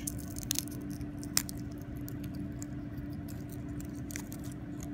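Thin mica sheets crackling and clicking faintly as fingers flex and peel them, with one sharper click about a second and a half in.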